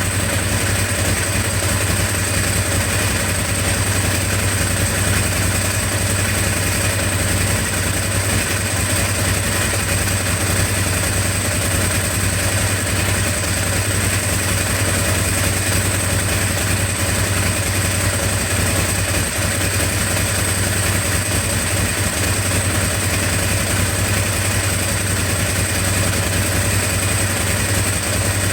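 Ducati 749 Testastretta L-twin engine idling steadily, with a constant high whine over the low engine note, as it runs for a crankshaft position sensor test.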